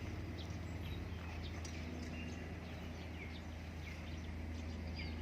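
Small birds chirping faintly and intermittently over a steady low hum.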